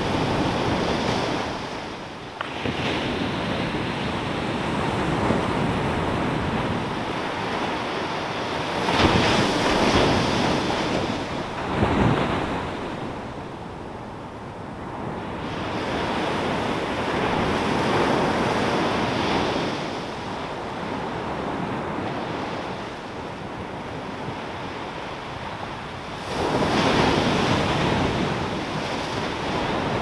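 Small Pacific Ocean waves breaking on a sandy beach and washing up the shore, the surf swelling and ebbing. Louder breaks come about ten seconds in and again near the end.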